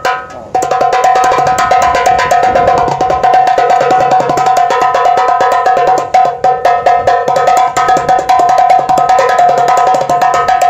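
Homemade drum made from an air-conditioner gas cylinder fitted with bolts and an old bass-drum head, struck in a fast, busy rhythm. A metallic ring at a steady pitch sounds under the hits, which start about half a second in and ease briefly around the middle.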